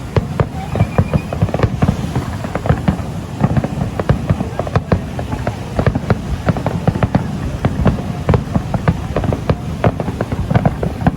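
Fireworks display: a dense, continuous run of sharp bangs and crackles, several a second, with a short faint whistle about a second in.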